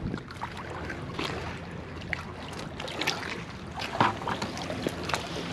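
Scattered clicks, crunches and scrapes of oyster shells and rocks being shifted by a gloved hand and underfoot in wet mud, with a sharper scrape about four seconds in, over a steady low background rush.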